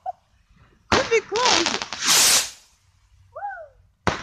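Small consumer fireworks going off: a sharp bang about a second in, followed by crackling and a loud hiss, then another sharp bang near the end.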